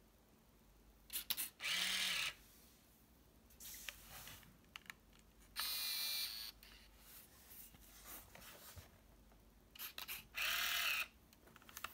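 Olympus SuperZoom 80G 35mm compact camera's electric motors whirring in three short bursts, each under a second long, with small mechanical clicks just before the first and the last; the lens retracting is one of them.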